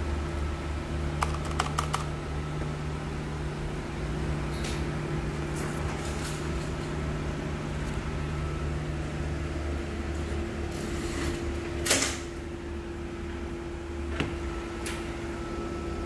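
Handling noise from a white mechanical keyboard being lifted and turned over: scattered light clicks and knocks of its plastic case, with one louder knock about twelve seconds in, over a steady low hum.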